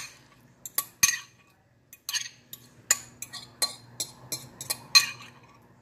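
A metal fork clinking and scraping against a glass bowl as shredded chicken is knocked out into a glass baking dish: an uneven run of sharp taps, the loudest about five seconds in.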